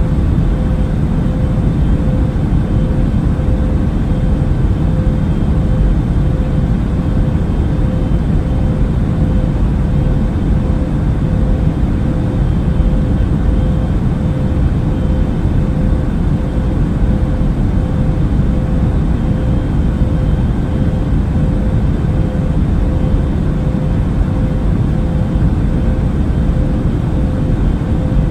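Airliner cabin noise in flight: a steady deep rumble with a faint even hum above it, unchanging throughout.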